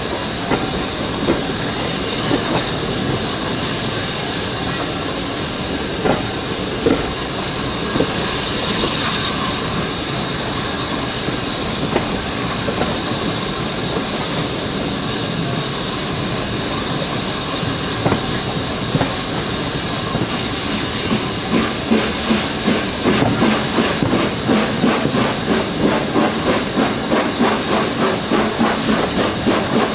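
BR Standard Class 9F 2-10-0 steam locomotive working a train, heard from a carriage window: a steady rush of exhaust and running noise, with occasional clicks of wheels over rail joints. In the second half a fast, regular beat comes through.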